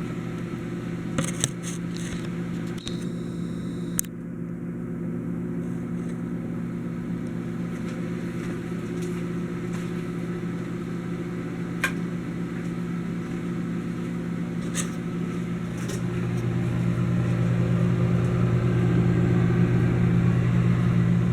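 Kenmore microwave oven running: a steady electrical hum that grows louder over the last few seconds, with a few light clicks.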